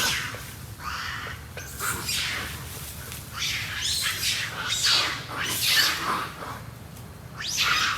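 Monkeys screaming in a fight: a run of about seven harsh, high-pitched screams, each under a second long.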